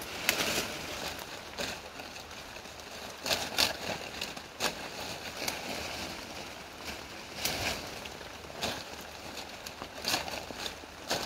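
Salal foliage rustling and stems snapping as branches are picked by hand and gathered into a bunch, in irregular bursts every second or so.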